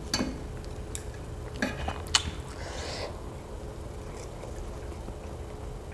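Close-miked eating sounds: a handful of sharp clicks and wet smacks in the first two seconds, then a brief soft wet rustle, from chopsticks and mouth while eating barbecued pork riblets with rice.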